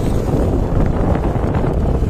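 Wind buffeting the microphone of a moving vehicle: a steady, loud rush and low rumble, with no distinct engine note standing out.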